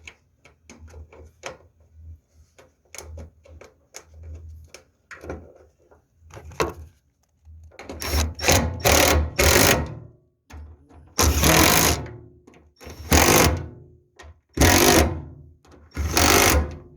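Light clicks and taps for the first half, then a power tool running in about seven short bursts, the first three in quick succession: bolts being run in and tightened on the fuel pump mounting.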